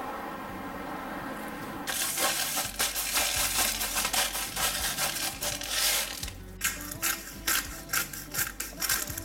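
Salt grinder milling pink salt, a dense crunching grind starting about two seconds in. After a short break about two-thirds of the way through, a pepper mill grinds black pepper in separate crunching turns, about three a second.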